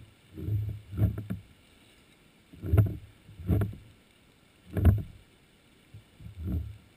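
A series of short, dull, low knocks, about seven at uneven gaps of roughly a second, picked up by an underwater camera on the seafloor.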